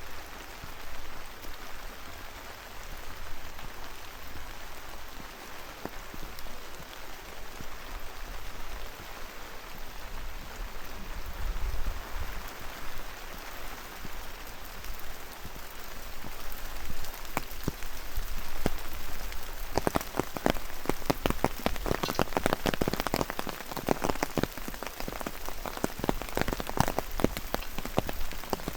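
Steady rain falling, with many sharp drop hits close by that come thick and fast over the last third.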